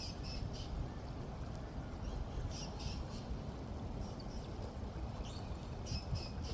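Flowing water making a steady rushing sound, heaviest in the low end, with short high bird chirps several times over it.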